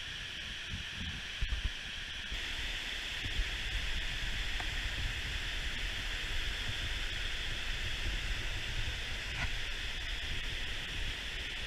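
Wind buffeting the microphone in an uneven low rumble, over a steady hiss.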